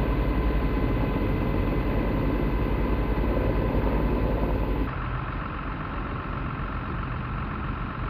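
Firefighting helicopter flying overhead, its rotor running steadily with a fast low pulsing. About five seconds in this gives way to a fire truck's engine idling, quieter.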